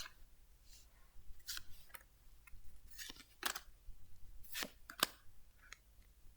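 Trading cards being slid and flicked one over another by hand: a run of short, crisp swishes and snaps at irregular intervals.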